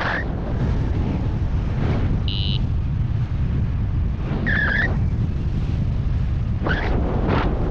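Wind buffeting the microphone with a steady low rumble. A short high beep comes about two seconds in, and a lower, slightly wavering chirp about four and a half seconds in.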